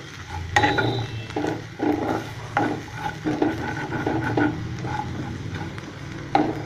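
Black spatula stirring and scraping sliced shallots and spice powders around a metal pan, with short scraping strokes about two or three times a second. The masala is frying.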